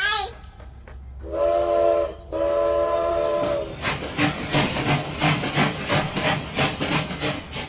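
Train horn sounding two steady blasts of about a second each, then a rhythmic train clatter at about four beats a second, like wheels running over rail joints.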